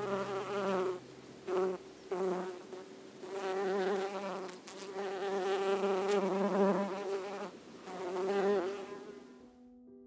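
Honey bees buzzing, a wavering hum that swells and fades in waves, louder through the middle and dying away near the end.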